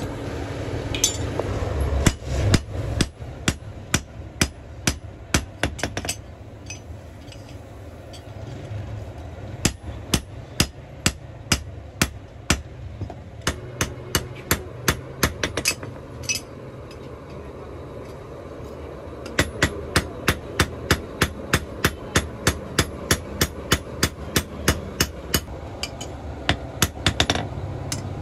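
Blacksmith's hand hammer forging an axe head on a steel anvil: sharp metal-on-metal blows, about two or three a second, in three runs with short pauses between.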